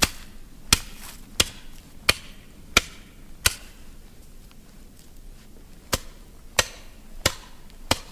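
Titanium shovel's blade chopping into brush at ground level, ten sharp strikes. Six come about 0.7 s apart, then after a pause of about two seconds four more at the same pace.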